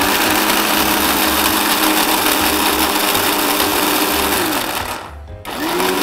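Electric mixer grinder blending cashews, almonds and desiccated coconut with milk into a thick paste. The motor whirs up to speed, runs for about five seconds, winds down, and after a brief pause starts again near the end.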